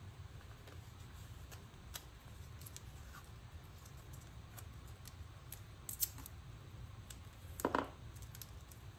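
Hands handling washi tape and paper on a desk: soft scattered ticks and rustles, with one short louder rasp near the end as tape is pulled or cut.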